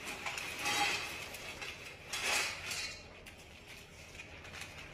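A dog's food bowl and a plastic bag of dry food being handled, clinking and rattling in two short bursts: one about half a second in and one just past two seconds.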